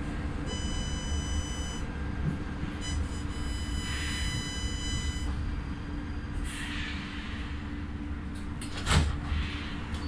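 Interior running noise of a KVB B80D light-rail car slowing into a station, with a high steady whine twice in the first five seconds. A sharp clunk about nine seconds in, then the door mechanism releasing as the double door begins to slide open.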